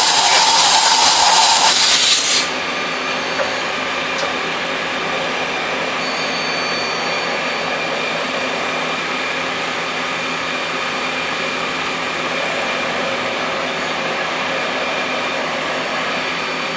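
Mazak Slant Turn 25 CNC turning center running. A loud spraying hiss cuts off about two and a half seconds in, leaving the machine running at a steady speed with a constant whine of several tones.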